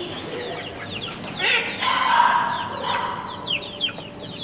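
A flock of young poultry peeping in many short, high, falling chirps, with a louder drawn-out call from one bird about two seconds in.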